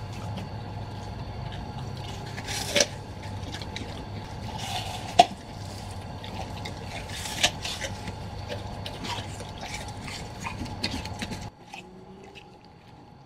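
Dog mouthing a ball: wet slobbery chewing noises with three sharp knocks, over a steady low hum that cuts off about two seconds before the end.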